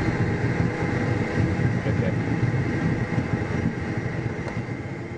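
Cessna Citation II's Pratt & Whitney JT15D turbofan engines running steadily, heard from inside the aircraft as a dense rumble with a constant whine, gradually getting quieter toward the end.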